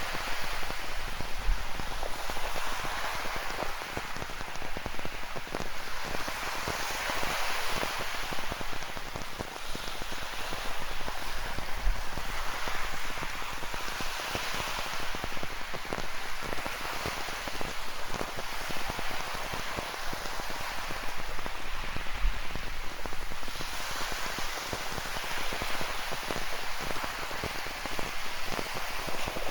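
Rain falling with ocean surf washing on a rocky shore, a dense steady hiss that swells and eases every few seconds.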